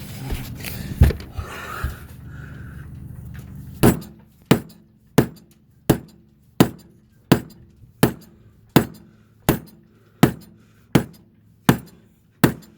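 Mallet driving a mahogany deck plug, set in epoxy, down into its hole: a steady series of sharp strikes about one every 0.7 seconds, starting about four seconds in. Before the strikes there is a low steady hum and a few scattered knocks.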